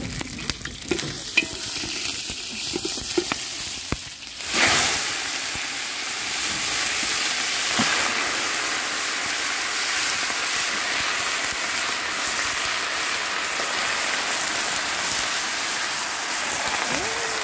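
Chicken sautéing in a pot of hot fat, with a few knocks from the stirring spoon in the first few seconds. About four and a half seconds in, the sizzling surges loudly and then carries on steadily.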